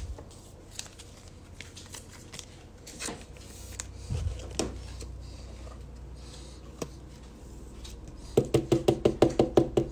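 Trading cards and a rigid plastic toploader being handled, with light clicks and rustles. Near the end comes a quick, even run of knocks, about seven a second.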